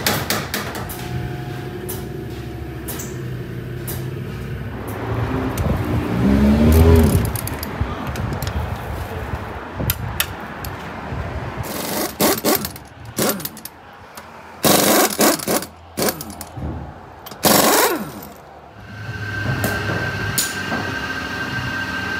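Tire-shop machinery running, with a whine rising in pitch about five seconds in, then a pneumatic impact wrench rattling on a truck's dual rear-wheel lug nuts. The wrench runs in several bursts, the longest over a second, about twelve to eighteen seconds in. A steady high tone follows near the end.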